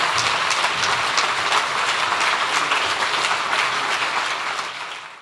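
Audience applauding, a dense steady clapping that fades out and then cuts off near the end.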